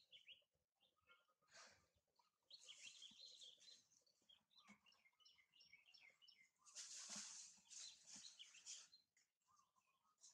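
Faint birds chirping with short, high, quick calls, and a louder hissing noise for about two seconds in the later part.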